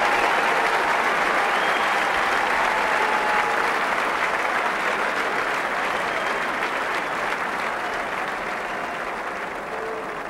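Large stadium crowd cheering and applauding, a dense wash of clapping and voices that slowly dies down.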